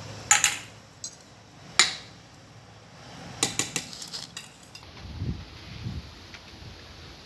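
Stainless-steel bowl clinking against a steel serving dish as tutti-frutti is tipped onto the rice: a few sharp metallic clinks, the loudest near the start and about two seconds in, then a quick run of lighter clinks. Near the end a few soft low thumps.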